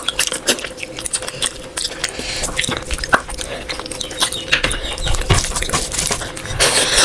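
A person eating close to the microphone: chewing and mouth smacks, heard as a quick, irregular run of wet clicks.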